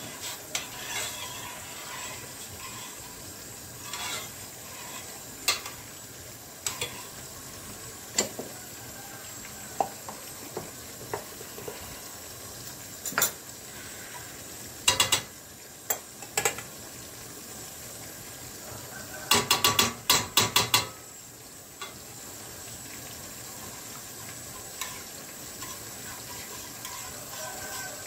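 A metal spoon stirring a red sauce in a metal pan, clinking against the pan now and then, over a steady hiss of food cooking on the stove. About two-thirds in comes a quick run of about eight taps of the spoon on the pan.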